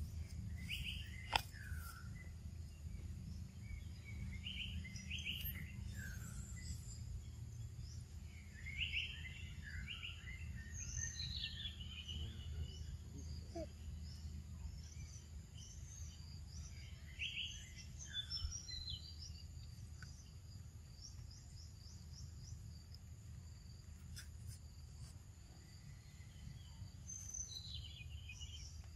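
Short bird chirps in scattered clusters a few seconds apart, over a steady low rumble of outdoor background noise. One sharp click sounds about a second in.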